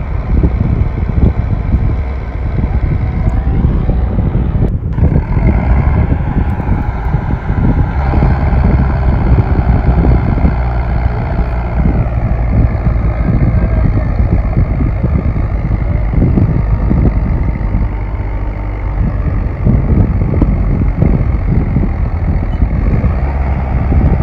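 Diesel tractor engines working hard under load, pulling disc harrows packed full of soil; a loud, steady engine note with heavy low rumble.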